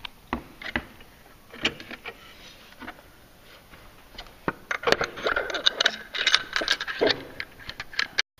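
Metal clicks and clinks from a Can-Am Renegade 1000's secondary clutch as it is worked by hand onto its splined shaft against its spring. There are scattered single clicks at first, then a dense run of rattling clinks from about five seconds in.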